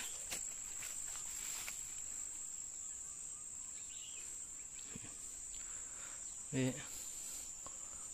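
Insects singing in a steady, high-pitched drone. About six and a half seconds in, a man's voice makes a brief sound.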